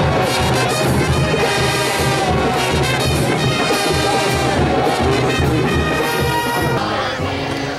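A marching band's brass section playing a sustained tune, the school song that the players stand for holding hands; the music thins out near the end.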